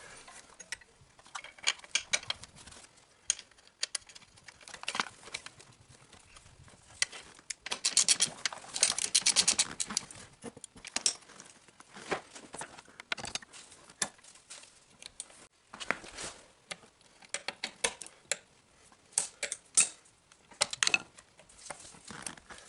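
Scattered clicks, taps and rattles of a seat belt buckle and its metal bracket being handled and fitted together, with a few seconds of rapid clicking about eight seconds in.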